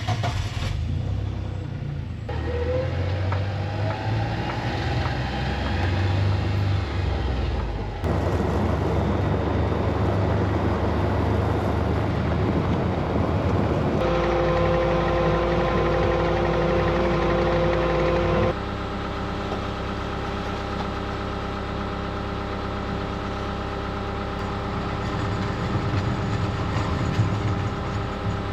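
A vehicle engine running steadily while driving, heard in several clips that change abruptly from one to the next. In the later clips it carries a steady droning whine.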